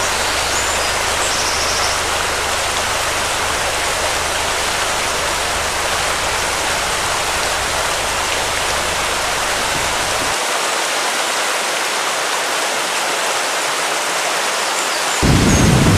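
A steady, even rushing noise like running water. A low hum under it drops away about ten seconds in, and a fuller, louder rush comes in near the end.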